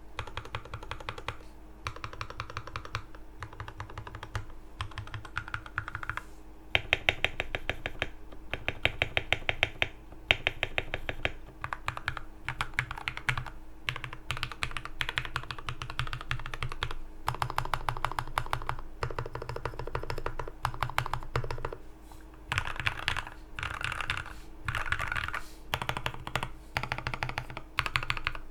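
Custom Akko MOD004 mechanical keyboard being typed on fast: lubed linear switches (Thick Thock alphas, Gateron Yellow elsewhere) under PBT OSA keycaps, tape-modded, giving a marbly clack. The keystrokes come in quick runs of a second or two with brief pauses between them.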